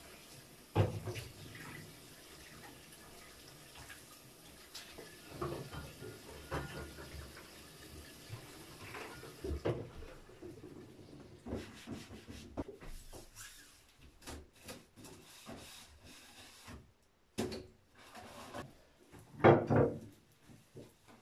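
Bathroom sink tap running with a steady hiss while the basin is wiped, shut off about ten seconds in. Scattered knocks and rubbing follow as bottles are moved and a sponge wipes the toilet cistern, with a louder clatter of knocks near the end.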